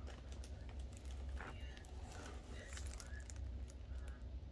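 Scattered light clicks and crinkles from handling a diamond painting canvas in its clear plastic film, over a low steady rumble.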